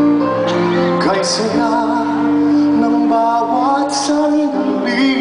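A man singing into a microphone with a live band of guitars, drums and keyboards, amplified through a concert PA. His long held notes waver with vibrato over the accompaniment.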